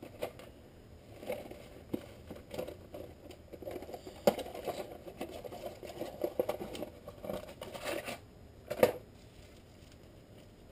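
The cardboard box and wrapping of a new saw chain being opened and handled: crinkling and rustling with scattered clicks, the sharpest about four seconds in and again near nine seconds.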